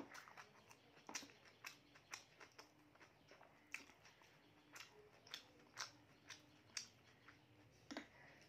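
Faint eating sounds from a person eating rice by hand: chewing and wet mouth clicks, coming irregularly about one or two a second.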